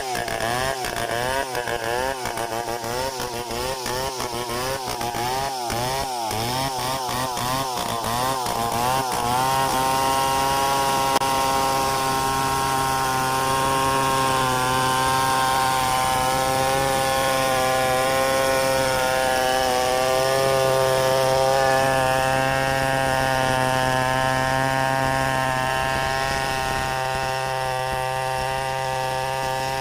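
Two-stroke chainsaw running hard. For about the first ten seconds its pitch wavers rapidly up and down, then it settles into a steady high pitch that holds to the end.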